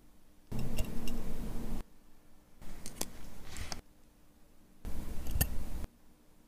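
Steel tweezers clicking and scraping against the parts of a Vacheron Constantin watch movement, picked up close. The sound comes in three bursts of about a second each, and each burst starts and stops abruptly.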